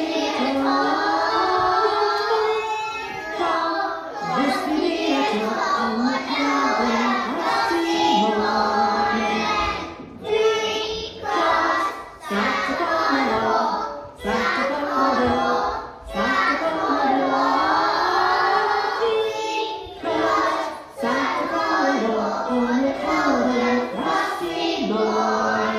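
A group of young children singing a song together, in phrases broken by short pauses for breath.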